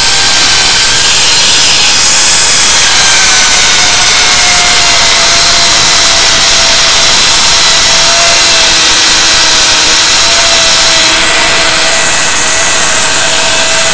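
Angle grinder fitted with a small chainsaw bar and chain, running flat out and cutting into wood: a loud, continuous whine over a gritty cutting noise. The pitch sags a little in the first couple of seconds as the chain bites, then holds steady.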